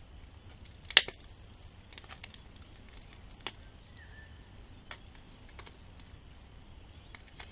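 Scattered small clicks and taps of hand tools working on a partly disassembled smartphone, the sharpest about a second in, with a few fainter ones spread after it.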